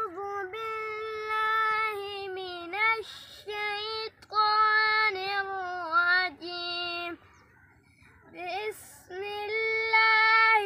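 A young boy reciting the Quran (tilawat) in a high, melodic chant, holding long notes in phrases, with a short pause about two-thirds of the way through.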